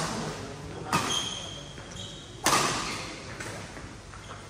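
A badminton rally: racket strings strike the shuttlecock in two sharp hits about a second and a half apart, the second louder, each ringing on in the hall. Between the hits, shoes squeak on the court mat.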